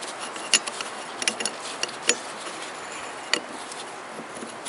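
Light, irregular metallic clicks and taps from an oil pump rotor being worked by hand into the outer rotor inside the pump body of a Toyota VVT-i engine.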